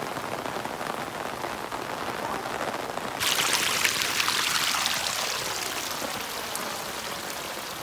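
Heavy rain falling steadily on wet ground. About three seconds in, a louder, sharper hiss of splashing water comes in suddenly and eases off again over the next couple of seconds.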